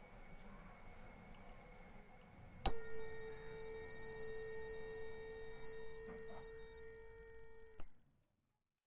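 A single high, bell-like ringing tone that starts suddenly about two and a half seconds in, holds steady for a couple of seconds, then fades away over about three seconds until it stops. Faint room tone comes before it.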